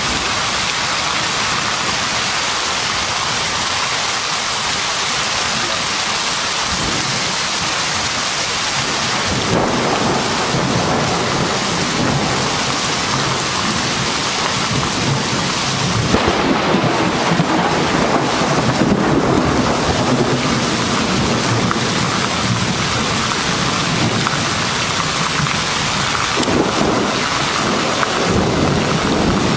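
Heavy downpour of rain hissing steadily, with thunder rumbling in from about a third of the way through, loudest a little past the middle, and rolling again near the end.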